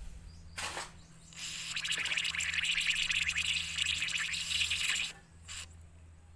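WD-40 aerosol can spraying into a cup: a short spurt, then a steady hiss of about four seconds, then another short spurt.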